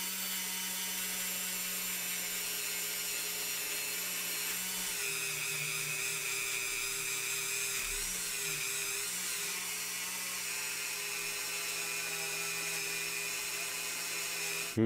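Small handheld rotary tool running at high speed with a steady high whine, a polishing bit buffing a freshly zinc-plated diecast car body with metal polish. Its pitch sags a little about five seconds in and wavers briefly around eight seconds.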